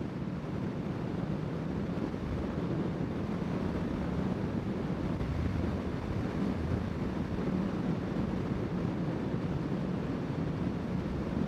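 Honda CBR650R's inline-four engine running at a steady cruise, with wind rushing over the microphone.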